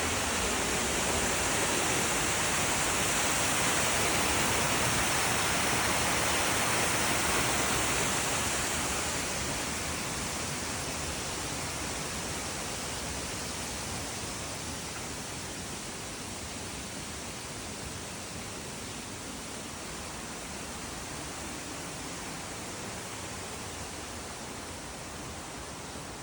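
Mountain creek water rushing over rocks as a steady hiss, louder for the first eight seconds or so and then slowly fading.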